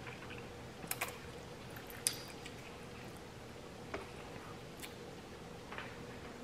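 Quiet eating of instant noodles: a handful of small, scattered clicks and taps from chewing and a fork working in a paper noodle cup.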